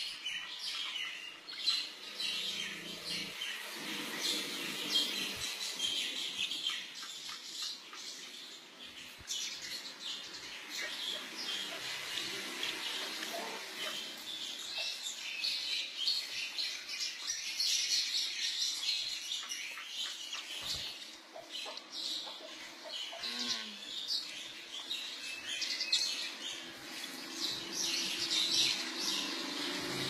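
Lovebirds chirping in a steady stream of short, high cheeps.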